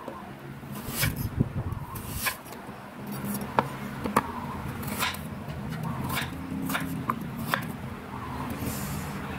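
Kitchen knife slicing through raw taro and knocking on a wooden cutting board: about nine sharp, irregular chops.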